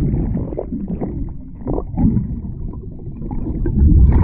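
Low, uneven rumbling noise with no music or speech.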